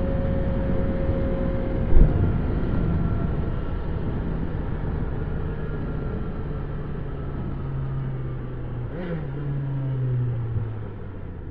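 Yamaha XJ6 Diversion F's 600 cc inline-four engine through its stock exhaust, running under way, its note falling slowly as the bike slows. There is a short thump about two seconds in, and a brief rise and fall in engine pitch about nine seconds in before the note settles lower near the end.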